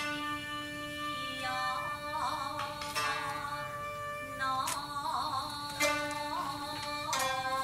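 Traditional Japanese jiuta ensemble music of koto and shamisen with shakuhachi: sharp plucked string notes every second or so over sustained, wavering tones.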